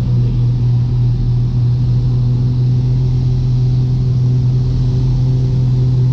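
Twin-engine Piper Seneca V's two turbocharged six-cylinder piston engines and propellers heard from inside the cockpit in flight: a steady, unchanging drone with a strong low hum.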